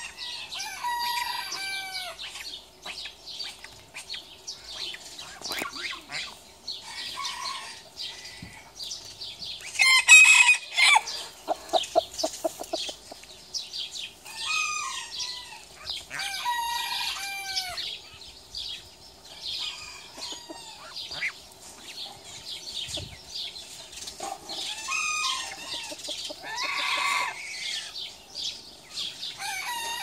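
Chickens clucking and calling on and off, with a rooster crowing; the loudest crow comes about a third of the way in, and another strong call comes near the end.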